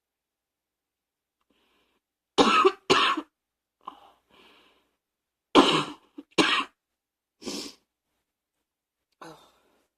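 A person coughing from allergies, in short separate fits: two sharp coughs about two and a half seconds in, fainter ones around four seconds, two more loud coughs around six seconds, then one cough and a faint one near the end.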